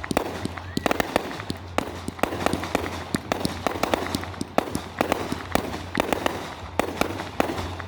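Fireworks crackling: a dense, irregular run of sharp pops, several a second.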